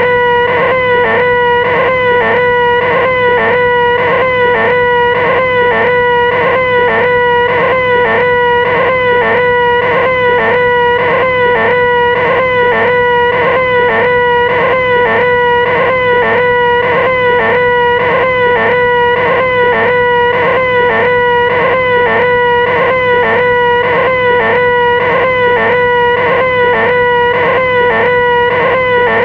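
A nasal, high-pitched "ehhh" drone from a human voice: the "most annoying sound in the world" held at one steady pitch without a break. It has a slight regular wobble a few times a second.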